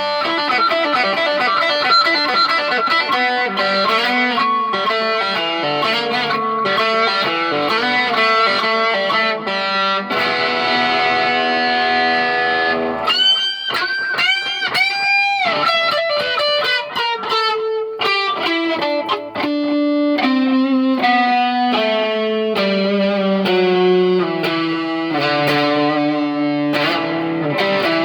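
Electric guitar with distortion playing a fast solo riff, with a few bent notes that swell up and down about halfway through and then a line of notes stepping down in pitch.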